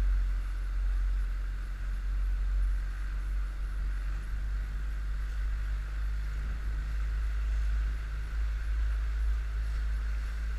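Outboard motor of an inflatable coach boat running steadily at low speed, under a heavy low rumble of wind on the microphone.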